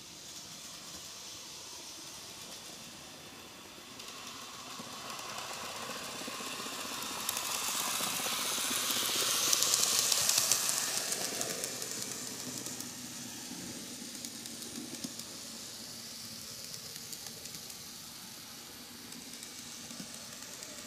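KATO N-gauge D51 498 model steam locomotive running on its track: the running noise of its small motor and wheels on the rails grows louder as it approaches, peaks about ten seconds in as it passes close, then fades as it runs away.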